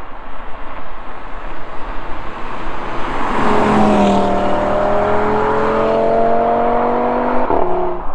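A sports car's engine and exhaust approaching under acceleration, its note climbing slowly and getting louder. About seven and a half seconds in, the pitch drops abruptly.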